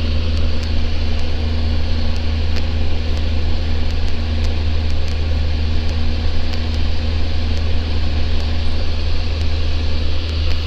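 Steady drone of a Socata TB10 Tobago's four-cylinder Lycoming piston engine and propeller in flight, heard inside the cockpit.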